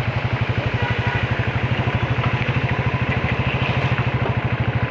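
Royal Enfield 350's single-cylinder engine running with a steady, even thump, about a dozen beats a second, over a steady hiss.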